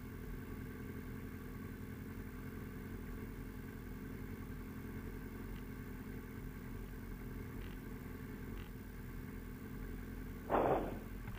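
Motorcycle engine idling steadily, with a brief, louder burst near the end.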